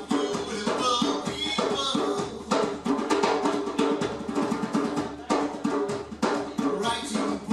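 Drums playing a zouk rhythm in a live percussion jam, with a sustained melodic line held over the beat.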